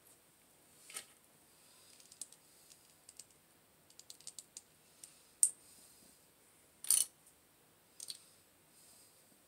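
Small plastic toy parts clicking as a tiny figure is fitted together by hand: scattered light clicks, with a sharp snap about five and a half seconds in and a short clatter about seven seconds in.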